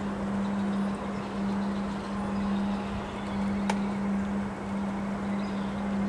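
Wind blowing in gusts through bare trees, with a steady low hum underneath. A single sharp click comes just past halfway.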